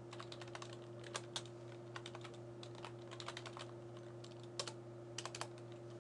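Typing on a computer keyboard: quick runs of keystrokes with short pauses between them, over a steady low hum.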